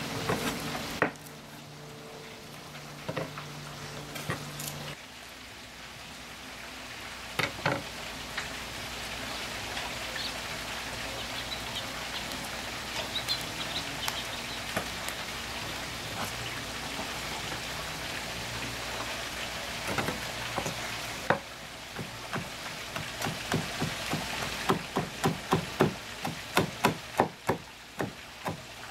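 A large kitchen knife chopping fresh herbs on a wooden cutting board, quick even strokes about three or four a second, starting a few seconds before the end. Before that, a steady hiss with a few scattered knocks.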